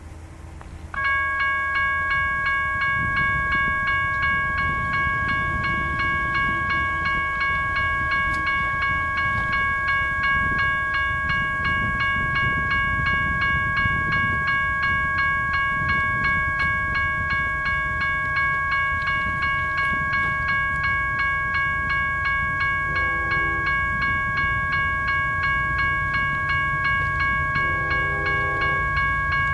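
Railroad grade-crossing bell starts about a second in and keeps ringing in quick, even strokes as the crossing signals activate for an approaching train. A train horn sounds briefly twice near the end, quieter than the bell, over a low rumble that builds as the train nears.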